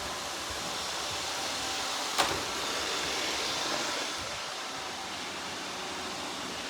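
Several robot vacuum cleaners running together, a steady hum of motors and brushes with faint steady tones. About two seconds in there is a single sharp knock.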